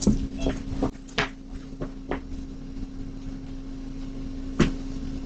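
A few scattered knocks and thumps over a steady low electrical-sounding hum, most of them in the first two seconds and one sharper knock near the end.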